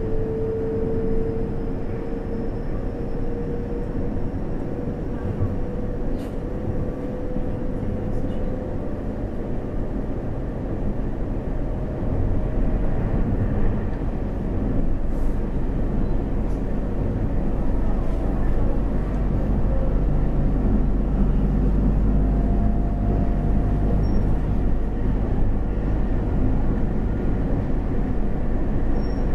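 Taiwan Railway train running along the line, heard from inside the carriage: a steady rumble of wheels on rail, with a faint whine rising slowly in pitch over the first several seconds. The running noise grows louder about twelve seconds in.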